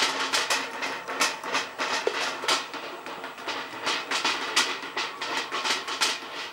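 String-pulled bird scarer over a rice paddy: a box hung on cords is jerked so it rattles and clacks over and over, several sharp clacks a second in an uneven rhythm. The clatter stops near the end.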